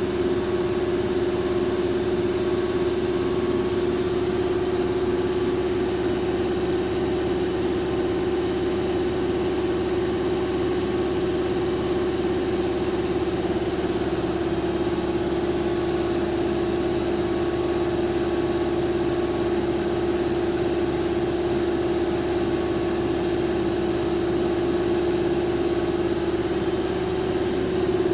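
Lathe running with a steady, even machine hum and a faint high whine, unchanged throughout.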